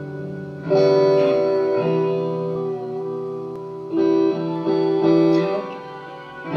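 1980s Fender Stratocaster electric guitar played through an amplifier in a slow improvisation: notes and chords are picked and left to ring out, with the strongest attacks about a second in and again about four seconds in.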